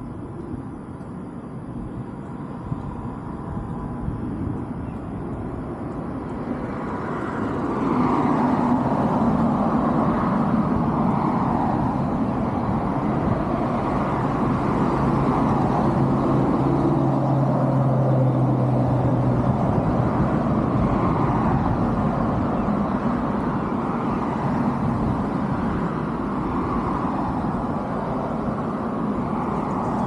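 A motor vehicle's engine running close by: it grows louder over the first several seconds, then stays loud and steady, with a low hum in the middle.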